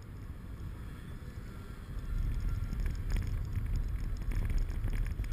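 Car interior noise while driving slowly: a steady low rumble of engine and tyres, getting louder about two seconds in, with a few faint knocks about three seconds in.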